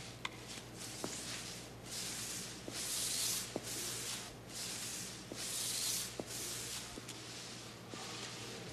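Footsteps of people walking on pavement: a soft, rhythmic scuffing a little faster than once a second, with a few faint clicks, over a steady low hum.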